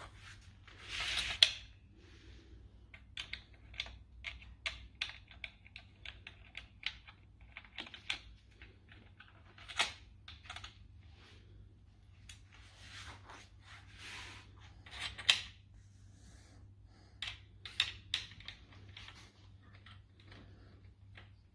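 Irregular light clicks and taps of steel bolts and metal sofa-bed frame parts being handled and fitted by hand into a wooden plinth, with a couple of brief scraping rustles. A faint steady low hum runs underneath.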